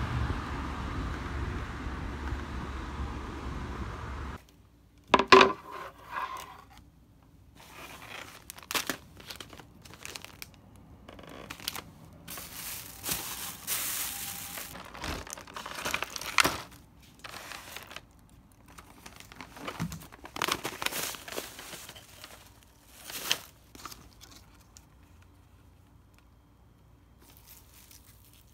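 Plastic grocery bags and wrapping crinkling and rustling in short bursts as groceries are handled and unpacked, with one sharp thump about five seconds in. Before that, a few seconds of steady street noise that cuts off suddenly.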